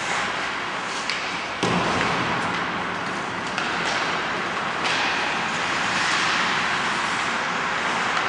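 Ice hockey play: a steady scraping hiss of skates on the ice with sharp clacks of sticks and puck, the loudest a hard bang about a second and a half in.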